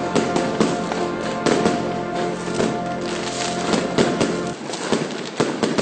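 Fireworks crackling and popping in quick irregular bursts over background music. The music stops about four and a half seconds in, leaving only the crackle of the fireworks.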